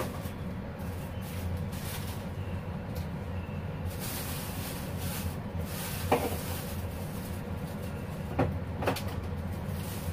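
Steady low kitchen hum with an empty wok heating on a gas hob. A sharp clink comes about six seconds in and two knocks near the end, like utensils or cupboard doors being handled.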